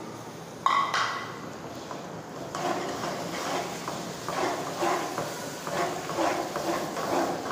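A perforated metal skimmer clanks once against an aluminium pot about a second in, then scrapes and stirs sliced tomatoes and green chillies through the oil and spices in uneven strokes about twice a second.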